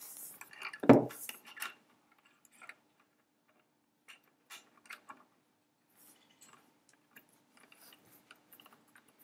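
Small metal clicks and knocks as a steel Bushmaster remote-firing device is worked onto an M3 submachine gun's trigger and clamped to its trigger guard, with one sharper knock about a second in.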